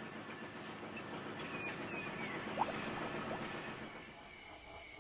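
Quiet steam-railway sound effects: a steady noise of a locomotive running, with a few short bird chirps and a single click about halfway through. Thin steady high tones come in over the last part.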